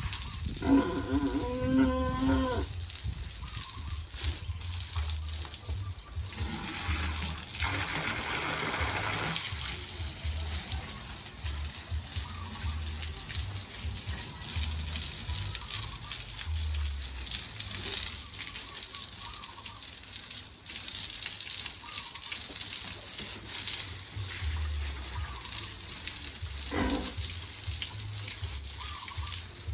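A farm animal gives one long call with a wavering pitch, about two seconds long, about a second in. A burst of rushing noise follows several seconds later, over a steady low rumble and hiss.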